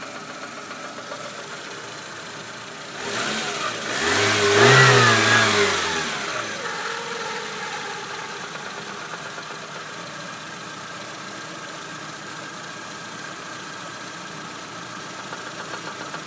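VAZ-2110 1.6-litre eight-valve engine idling with a knock, revved once about three seconds in, its pitch rising and falling back to idle. The owner traced the knock to axial play in the camshaft.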